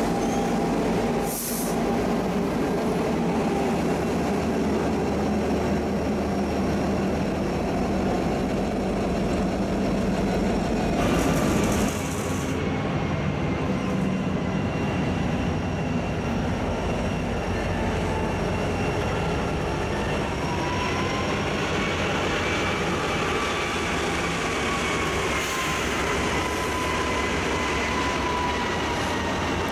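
Union Pacific diesel locomotives rolling past at close range, engines running with a steady rumble. From about halfway, steel wheels squeal against the rail in thin high tones that drift slowly in pitch.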